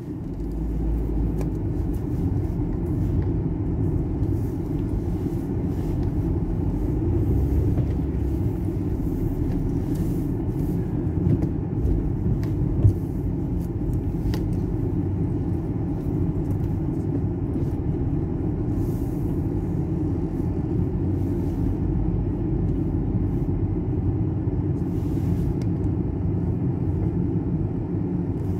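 Inside a moving car's cabin: a steady low rumble of engine and tyres on the road, with one short knock a little before halfway through.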